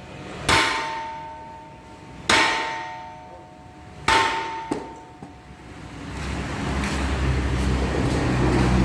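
A large metal ship propeller struck with a hammer three times, about two seconds apart. Each blow rings out in a clear metallic tone that slowly dies away. From about six seconds in, a low rumble builds.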